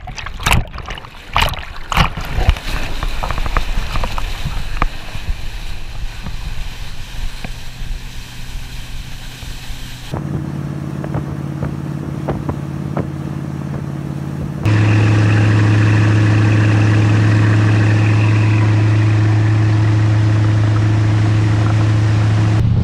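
Water rushing and splashing with sharp clicks at first. From about ten seconds in, the Chris-Craft V8 of a 1962 Riva Florida runabout runs steadily under way, with a sudden jump in loudness about fifteen seconds in, after which its even drone holds at one pitch.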